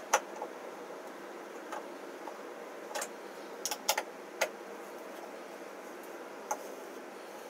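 Scattered sharp metallic clicks of a steel hex key seating in and turning a screw-in threaded insert as it is driven into a wooden board. The loudest click comes just after the start, with a quick cluster around four seconds in.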